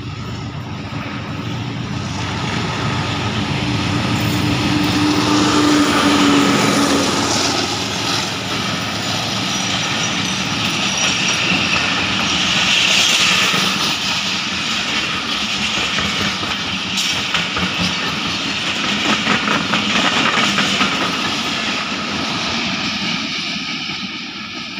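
Pakistan Railways passenger train running past at speed, its wheels clattering over the rail joints. The sound builds as the train nears and draws level, then fades near the end as the coaches move away.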